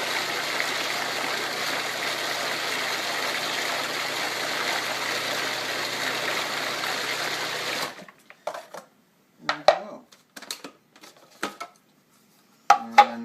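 Countertop blender running steadily as it blends a yogurt-and-fruit smoothie, then switched off about eight seconds in. A few short knocks and clinks follow.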